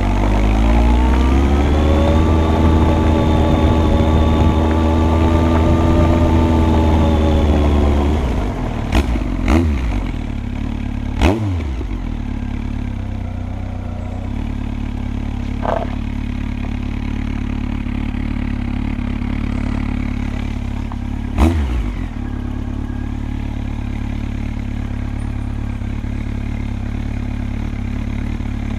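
Honda CB1300's inline-four engine pulling up through the revs and holding steady under load for several seconds, then rolling off. A few sharp knocks follow, and the engine settles to a steady idle.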